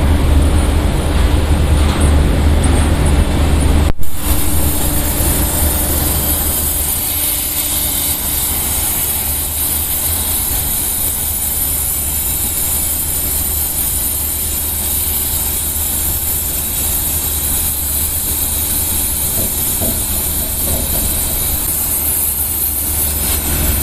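100-ampere plasma cutter cutting through steel plate: a loud, steady hiss of the arc and compressed air, over a low hum. There is a brief sharp break about four seconds in.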